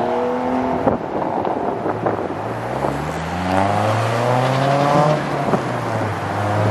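Car engines accelerating hard: revs climb until an upshift about a second in, then a second engine winds up in pitch for about two seconds, shifts, and settles to a steady low drone as it drives closer.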